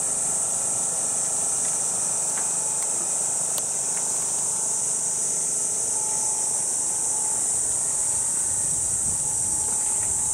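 Steady, high-pitched drone of a summer cicada chorus, unbroken throughout.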